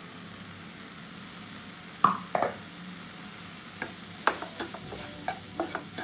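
A spatula scraping and knocking in a non-stick pan as ground roasted makhana is stirred into mashed banana frying in ghee, over a faint steady sizzle. The scrapes and knocks start about two seconds in and come irregularly.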